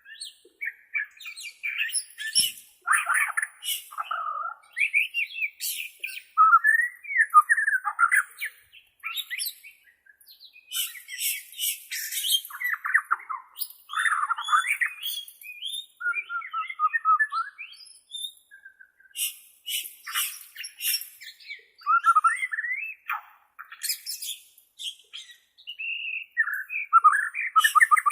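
Borneo-type murai batu (white-rumped shama) singing: a long run of varied whistled phrases interspersed with sharp, high, rattling chatter notes, in quick bursts with short pauses.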